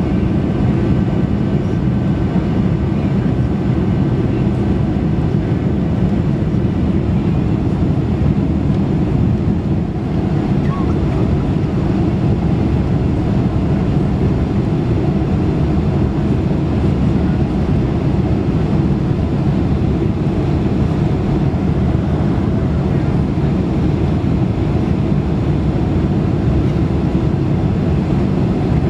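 Cabin noise inside a Boeing 747-400 on its approach: a loud, steady low rumble of engines and airflow, with a few faint steady tones above it.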